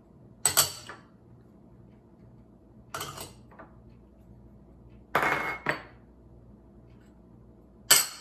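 Small glass prep bowls clinking against a glass mixing bowl as their contents are emptied in: four sharp clinks a couple of seconds apart, the third a quick double.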